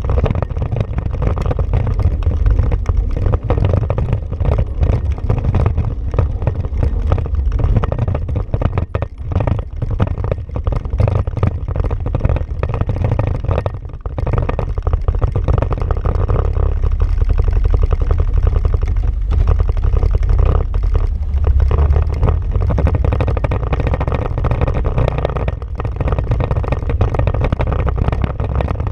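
Honda Pioneer 500 side-by-side's single-cylinder engine running under way on a rough dirt trail, a steady low rumble with knocks and rattles from the bumps. The level dips briefly about 9 and 14 seconds in.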